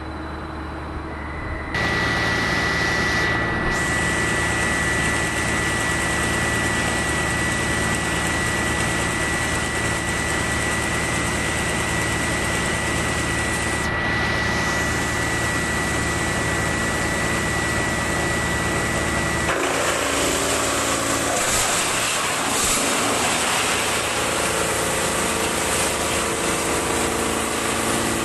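Large engine-driven industrial wood chipper/grinder running steadily, a machine drone with a thin high whine over it. The sound steps up in level about two seconds in and changes character abruptly about twenty seconds in, and the whine drops out.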